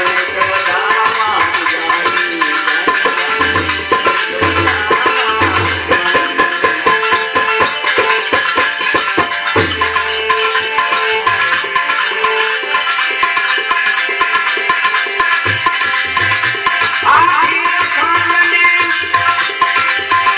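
Indian devotional music played live, with hand drums and jingling hand percussion over a sustained melodic accompaniment.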